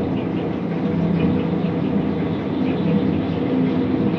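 Chicago 'L' elevated train on the Brown Line track, heard as vibration of a window pane picked up by a contact microphone. It is a steady rumble with a low hum running through it.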